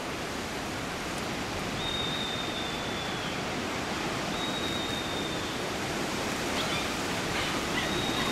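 Steady rushing noise of wind buffeting the microphone outdoors. Over it come three long, thin high whistles, each held level for about a second and a half and dropping away at the end, with a few short chirps between the second and third.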